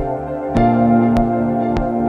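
Melodic electronic dance music: sustained synthesizer chords that change to a new chord about half a second in, over a steady beat with a sharp percussive hit about every 0.6 seconds.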